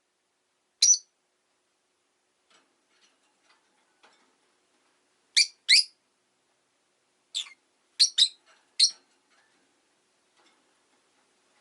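Rosy-faced lovebird giving short, sharp, high chirps: one about a second in, then a pair, then a quick run of four, with faint small taps in the quiet between them.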